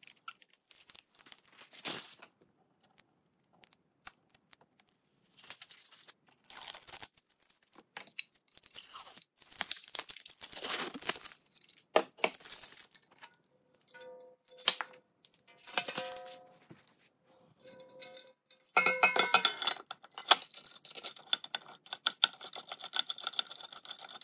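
Protective plastic film being peeled off an Elegoo Saturn resin 3D printer in several separate tearing, crinkling pulls. Near the end the resin vat is handled and set in place on the printer, with denser rustling and knocks.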